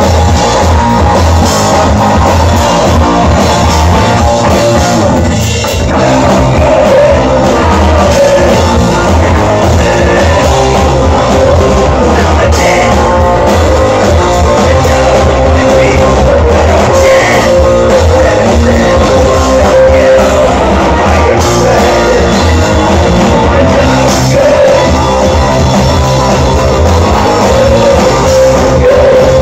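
Punk rock band playing live and loud: distorted electric guitars and a drum kit, with a lead singer on the microphone.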